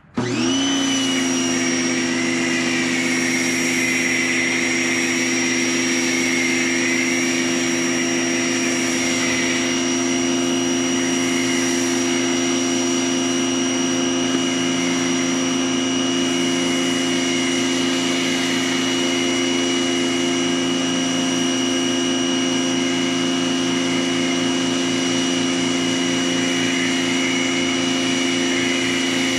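Greenworks 2000 PSI electric pressure washer switching on and running steadily: the motor and pump start suddenly and hold a constant hum with a high whine over a spray hiss.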